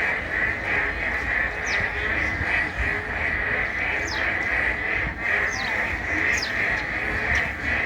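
A dense chorus of frogs calling steadily by a stream, with several short falling whistles over it.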